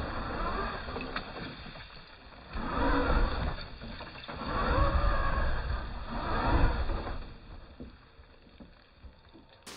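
Electric drivetrain of a 100 lb Primal RC V3 Mega trail truck, converted to a sensored Castle Mamba X2 brushless system, driven in short throttle bursts as it crawls over rough ground. The motor and gear whine rises and falls about four times, over a low rumble, and dies away near the end.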